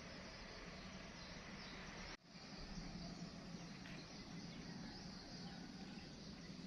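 Faint steady outdoor background: a low hum with insects chirping, cut off for an instant about two seconds in.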